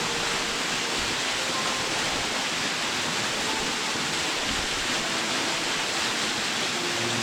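Waterfall pouring steadily into its plunge pool: an even, unbroken rush of water.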